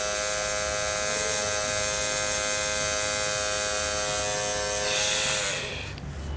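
Electric tattoo machine buzzing steadily as the needle works into skin; it winds down, dropping slightly in pitch, and stops about five and a half seconds in.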